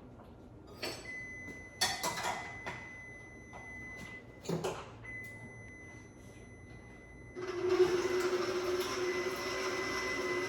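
A few kitchen clatters and knocks, then about seven seconds in an electric mixer starts running steadily, beating the cream cheese, condensed milk and lime juice filling.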